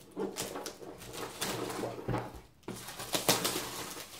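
Tight-fitting cardboard lid of a board game box being worked off its base: a run of rubbing and scraping strokes of cardboard sliding on cardboard, with hands handling the box.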